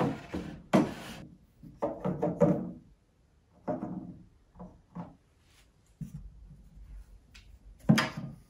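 Small objects being set down and shuffled on the shelves of a white KALLAX shelving unit: a string of irregular knocks and thunks with handling noise between them, the sharpest just under a second in and another near the end.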